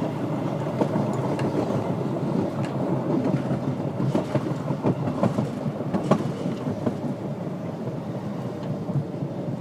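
Chicago CTA Red Line rapid-transit train running on its rails, heard from inside the car: a steady rumble with a few scattered sharp clicks.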